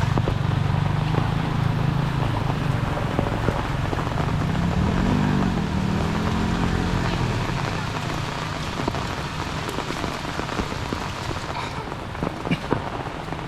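Steady heavy rain falling on surfaces, with a low vehicle engine running under it for the first half, fading out after about seven seconds.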